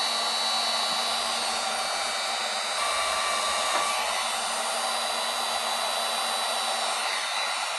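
Wagner electric heat gun blowing hot air steadily: an even airy rush with a thin high whine, heating the aluminum panel at the dent to relax the metal for pulling.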